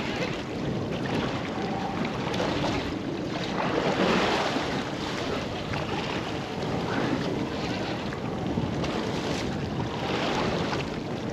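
Wind buffeting the microphone over sea water washing against a small fishing boat, a steady rushing that swells and eases in gusts.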